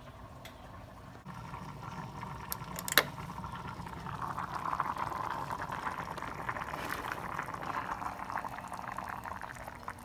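Macaroni boiling hard in a small saucepan of water: a dense bubbling that grows louder about four seconds in and eases near the end. A single sharp knock about three seconds in.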